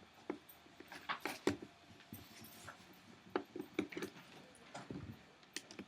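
Light scattered clicks and clinks of a small screwdriver and tiny metal screws being worked out of a laptop's plastic screen bezel and handled.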